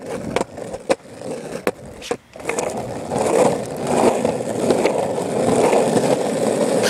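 Old Variflex Vectra skateboard on longboard wheels rolling over asphalt. A few sharp clicks come in the first two seconds and the sound drops out briefly just after two seconds; from about three seconds in it settles into a louder, steady rolling rumble.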